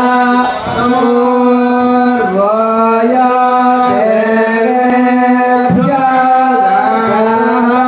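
Male chanting of temple mantras, a sustained recitation held mostly on one pitch with slow steps up and down between notes.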